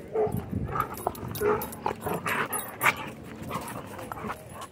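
Dogs at play: a few short yips and barks over irregular rustling and panting.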